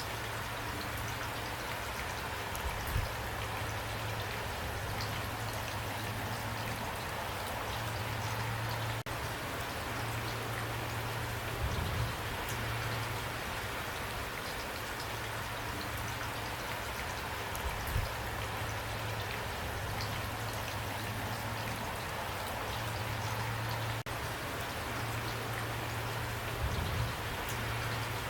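Steady rain falling, with a few short low thumps scattered through.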